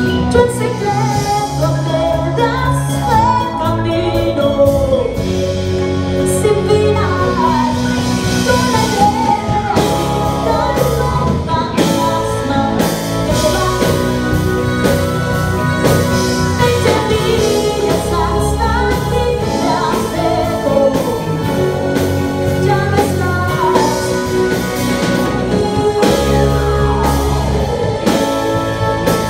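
Live band playing a pop-rock song: a woman's lead vocals over electric bass guitar, drum kit and electric guitar, heard in a room.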